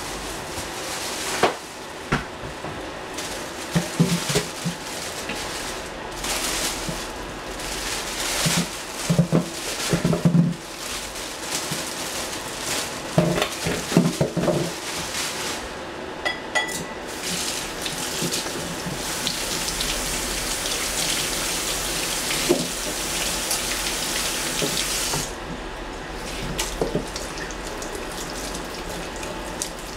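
Kitchen tap running, with scattered knocks and clatter of things being handled; the rush of water is strongest for several seconds from about nineteen seconds in.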